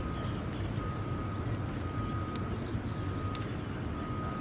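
Construction-vehicle reverse alarm beeping steadily about once a second, each beep one high tone, over a low rumble of site machinery and traffic, with a couple of sharp clicks.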